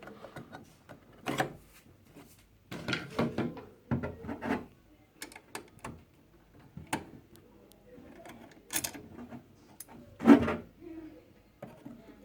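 Handling noises from lifting out a sewing machine's bobbin case and working its tension screw with a screwdriver: irregular clicks, taps and knocks, the loudest about ten seconds in.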